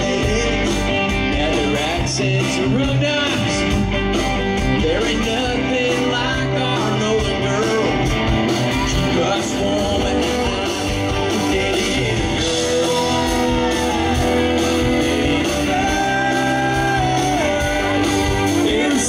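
Live country band playing a song: electric guitar, drums and acoustic guitar, with singing over it, recorded from the audience.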